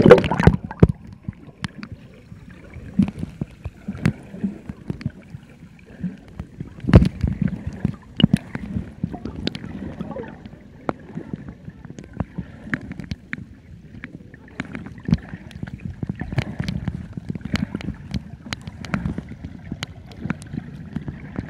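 Pool water heard from underwater as swimmers kick and stroke nearby: a low, muffled churning with irregular sharp clicks and pops. A louder knock comes about seven seconds in.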